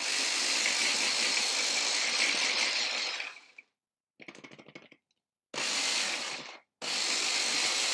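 Small electric food processor pulsed to chop spinach leaves and mint: one long run of about three seconds, then two short bursts, its motor giving a steady high whine over the whirr of the blade. A brief quieter rattle comes in the gap after the first run.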